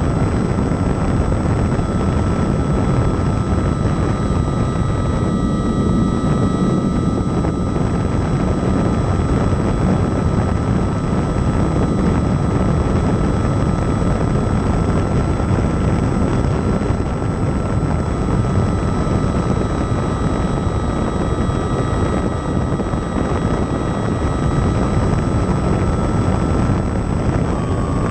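Baby Ace RC model airplane's motor and propeller running steadily in flight, heard from a camera on board: a steady high whine over a heavy rush of wind, the whine dropping slightly in pitch near the end as the throttle eases.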